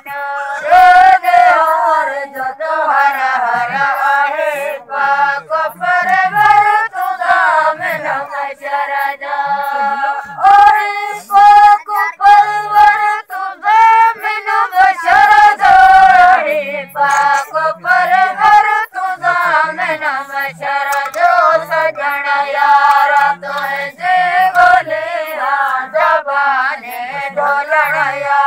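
Sindhi sehra singing: a chorus of voices sings a wavering, ornamented melody in long phrases.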